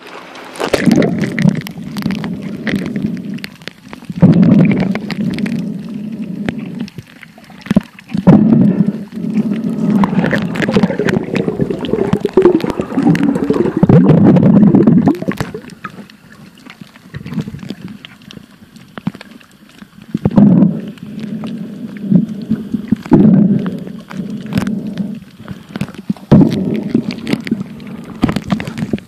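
Muffled underwater rumbling and sloshing from water moving around a phone held below the surface while snorkelling, with irregular swells and scattered sharp clicks of handling.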